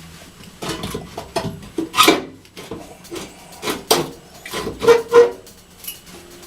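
Pieces of sheet metal being handled: irregular clinks and clanks with scraping and rubbing between them, the loudest knocks about two, four and five seconds in.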